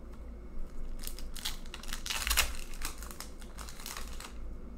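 Foil wrapper of a trading-card pack crinkling and tearing as it is ripped open by hand, in a run of dense crackles lasting about three seconds, loudest in the middle.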